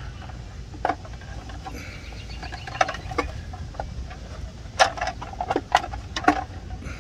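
Small clicks and taps from hands working wires into the screw terminal block of a pool pump timer, over a steady low rumble. The clicks come singly at first and cluster more closely in the second half.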